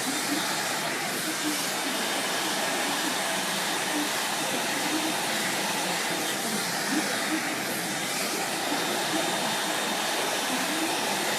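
Dyson hair dryer running steadily on its highest heat and airflow setting, an even rush of air that sounds quiet for a hair dryer.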